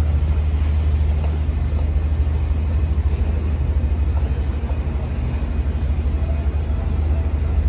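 Steady low rumble under a busy outdoor city hum, with no distinct events.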